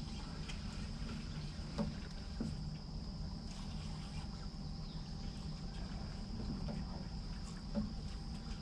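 Yamaha outboard motor idling steadily, a low hum with a faint steady high-pitched whine above it. A few light knocks come about two seconds in and again near the end.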